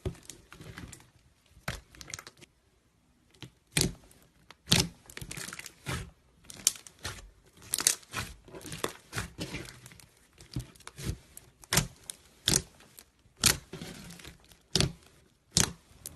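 Slime being squeezed and pressed by hand, making irregular sharp pops and crackles, roughly one or two a second, with short crackly stretches between them.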